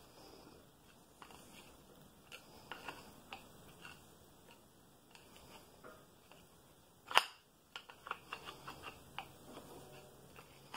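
Faint, scattered metallic clicks and scrapes of a long screwdriver and steel rod being worked against the head of a Bridgeport mill, with one sharp metal clack about seven seconds in and a run of small clicks after it.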